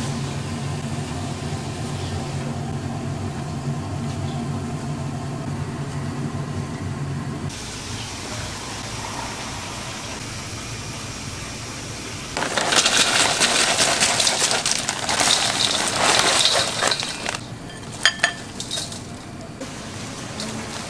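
Kitchen sounds: a steady low hum, then water running hard for about five seconds past the middle, and a few short clinks near the end.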